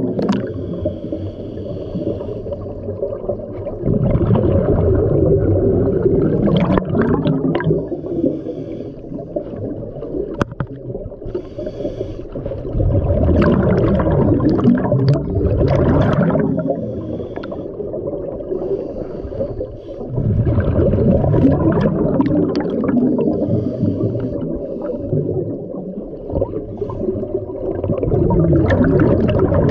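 Scuba diver breathing through a regulator underwater: long bursts of exhaled bubbles rumble and gurgle about every seven to eight seconds, with quieter inhalations between.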